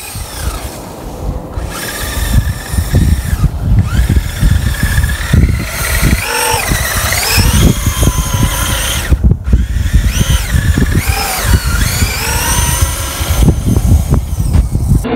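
Traxxas UDR RC trophy truck's electric motor whining, its pitch rising and falling over and over with the throttle, over a rough low rumble with many knocks.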